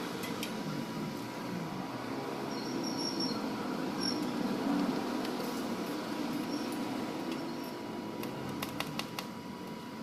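Arc welding on a car's exhaust pipe: sharp crackles of the arc over a steady low hum, with the crackles bunching together near the end.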